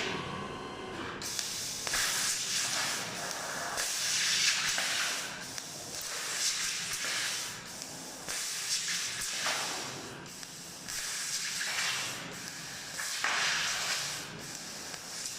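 Laser cutting machine hissing in irregular bursts about a second long, the assist-gas jet at the cutting head switching on and off between cuts.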